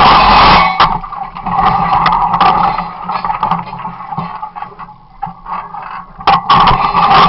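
Excavator-mounted Rotar RDC 42 S demolition combi shear at work: steady machine and hydraulic noise with clinks and knocks of steel on debris. It is loud at first, drops away in the middle and comes back loud near the end.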